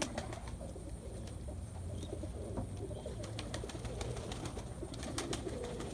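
Barless Hana Pouter pigeons cooing in low, murmuring coos, with scattered sharp clicks that cluster about five seconds in.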